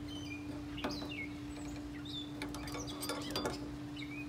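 Channel-lock pliers clicking and scraping against a stainless steel S-hook as it is squeezed shut onto a metal grill handle: a click about a second in, then a cluster of clicks around three seconds in. A steady low hum runs underneath.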